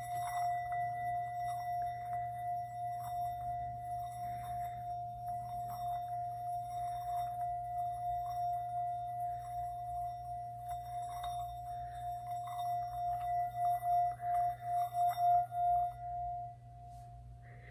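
Singing bowl sounded by rubbing a mallet around its rim, building up without an initial strike: one steady ringing tone with faint scraping from the mallet. Near the end the tone wobbles in quick pulses, then drops to a quieter lingering ring.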